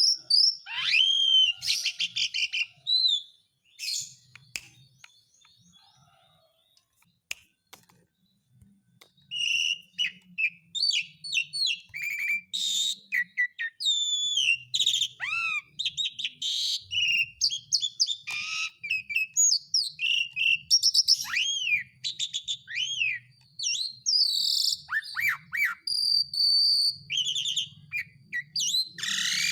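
Asian pied starling (jalak suren) singing: a fast, varied run of gliding whistles, chirps and rattling notes. It falls quiet for about five seconds around four seconds in, then starts again and keeps going.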